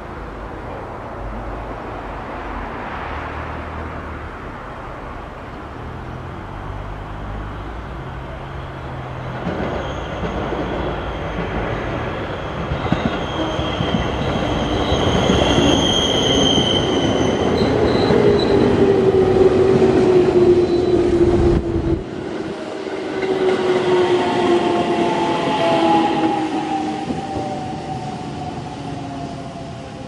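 A train running past close by, its wheel rumble building to a peak and then easing off, with a whine that falls slowly in pitch over several seconds in the second half before fading.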